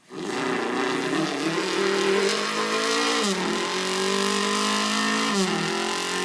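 A man's voice imitating a 1987 Yamaha Maxim 750 motorcycle accelerating through the gears. The engine note climbs, then drops sharply at a gear change about three seconds in and again about five and a half seconds in.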